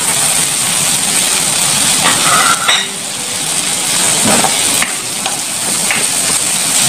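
Sliced tomatoes, shallots and ginger sizzling in hot oil in a wide metal wok, with a steady hiss, while a wooden spatula stirs and scrapes them around the pan.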